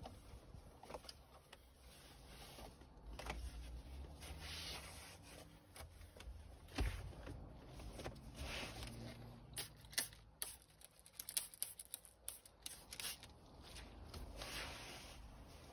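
Faint rubbing and scuffing as leather car seats are wiped down by hand, with a cluster of light clicks and knocks a little past the middle.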